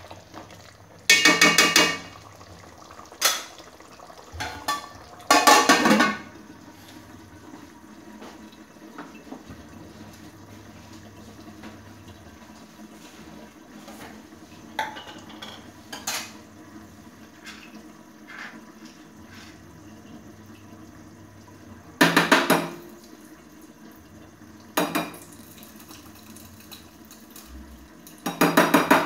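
Aluminium cooking pot and its plate lid clanking: a handful of sharp metallic clangs that ring briefly, the loudest about a second in, around five seconds in, about 22 seconds in and near the end, with a faint steady background between them.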